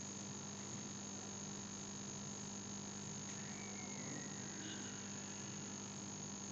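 Steady electrical hum with a high whine and hiss, the background noise of the recording with no other sound over it.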